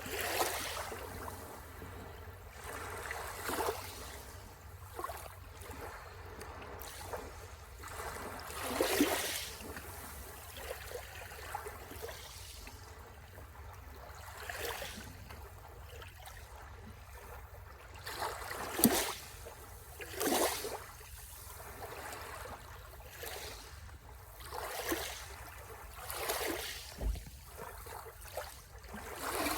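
Small sea waves breaking and washing onto the shore, each coming as a brief swell of noise every few seconds at an uneven pace.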